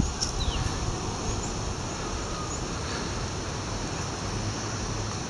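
Steady outdoor background noise: a low rumble under an even hiss, with a faint falling bird chirp just after the start and a few short, faint high chirps.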